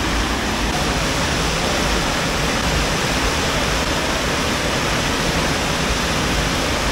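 Steady, loud rushing of water on an artificial sheet-wave surf ride, where a thin fast sheet of water is pumped up a padded slope.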